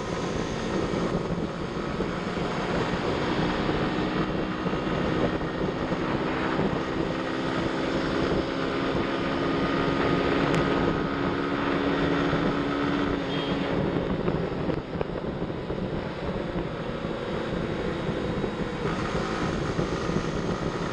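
Honda CB 160 F DLX's single-cylinder carbureted engine pulling hard under acceleration, its pitch slowly rising, then easing off about thirteen seconds in. Wind rushes over the microphone throughout.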